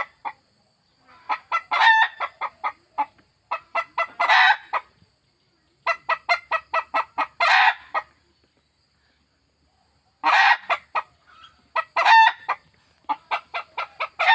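Desi hen cackling in repeated bouts: each is a quick run of short clucks, several ending in a longer drawn-out squawk, with brief pauses between bouts.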